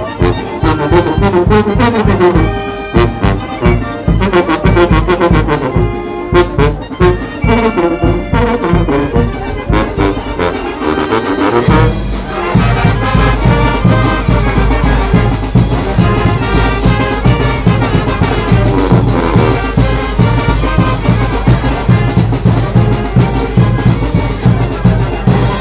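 Live Mexican brass band (banda) playing: sousaphone, saxophones and trumpets over a bass drum and clashing hand cymbals, with a steady beat. The bass grows heavier about halfway through.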